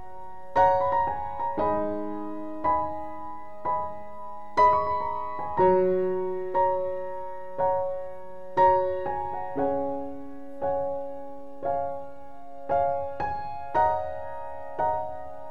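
Slow, gentle background piano music: single notes and chords struck about once a second, each ringing out and fading.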